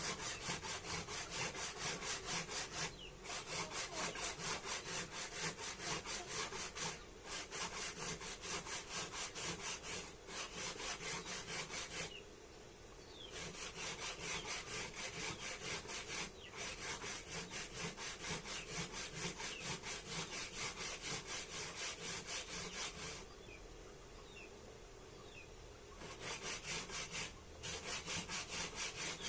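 Hand grating on a kitchen grater: rhythmic rasping strokes, a few a second, with short pauses between runs, the longest about two-thirds of the way through.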